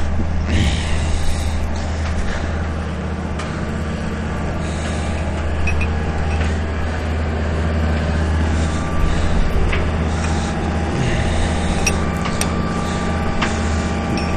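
JCB's diesel engine idling steadily. Several sharp metal clinks sound over it as a ratchet strap's hook and webbing are worked against the shipping container's steel corner fitting.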